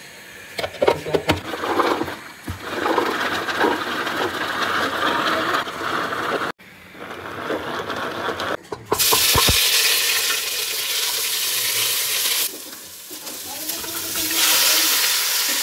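Kitchen handling clatter, then a loud, steady sizzling hiss of beef frying in hot oil in a pot. The hiss dips briefly and swells again near the end as more minced beef goes into the pot.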